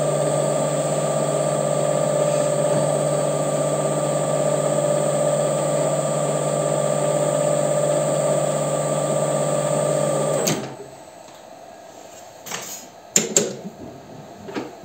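WM210V bench lathe running steadily, its motor and gear train giving a hum with a fixed whine. It shuts off suddenly about ten and a half seconds in, and a few light metallic clicks and knocks follow as the chuck is handled.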